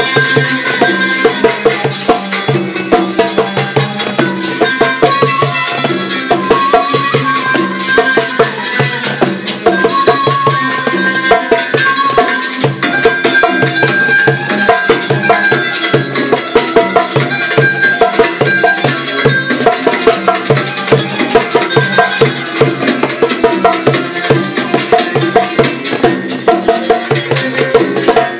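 Background music in a traditional style, with a fast, steady drum beat under a melody.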